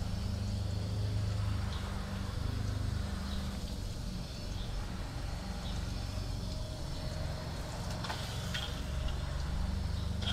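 Water running gently from an open garden hose, without a nozzle, and splashing down a greasy metal smoker door as it rinses off degreaser, over a steady low hum.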